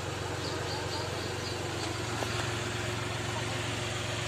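Tractor diesel engine running steadily while its hydraulics tip the trailer to unload sand; the engine note gets heavier about two seconds in.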